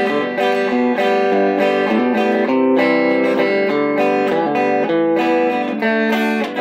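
Stratocaster-style electric guitar plugged in and played continuously, picking notes and chords in G with a descending bass walk-down while the player works out the part by ear.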